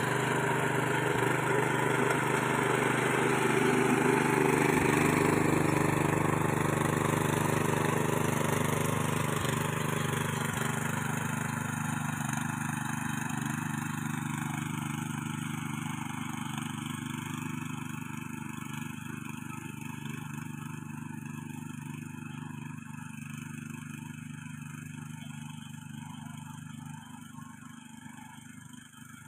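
ProQuip mini cultivator (rotary tiller) engine running steadily under load as its rotary tines churn dry soil and grass, growing fainter as the machine moves away.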